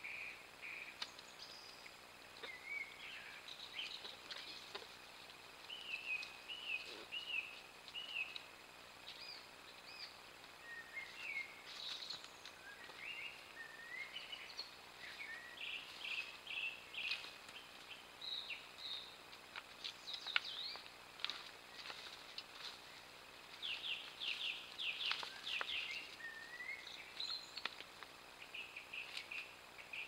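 Song thrush and blackbird singing in woodland: a run of varied whistled phrases, some made of short notes repeated several times over, with a dense rapid burst of notes about three-quarters of the way through.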